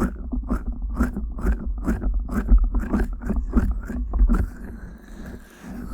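Fingers scratching and rubbing the silicone earflaps of a 3Dio binaural microphone, close up, with a low rumble from the handling. The quick scratch strokes come about three to four a second, then give way to a softer, smoother rubbing near the end.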